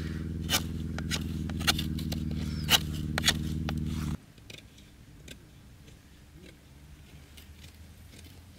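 Fixed-blade knife shaving a wooden stick, a sharp scrape with each stroke about twice a second. Under it runs sustained background music that cuts off about four seconds in, after which fainter scraping goes on.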